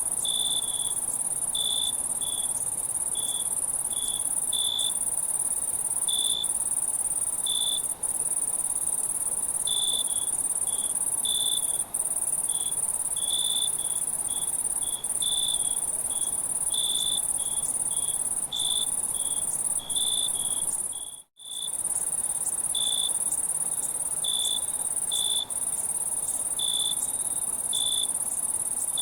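Night chorus of crickets: a continuous high-pitched trill with separate, lower chirps repeating irregularly about once or twice a second. The sound cuts out for a moment about two-thirds of the way through.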